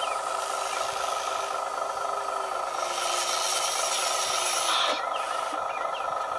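Small electric motors and gearing of radio-controlled model construction vehicles whining steadily with a hiss, while a lower motor tone sags slightly as the RC dump truck's tipper bed lowers, ending with a short clack about five seconds in.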